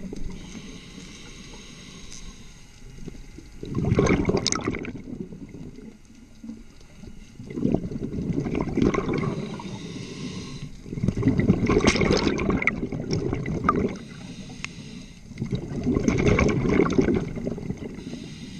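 A scuba diver breathing underwater through a regulator: quieter hissing inhalations alternate with three loud bursts of exhaled bubbles gurgling up past the mask.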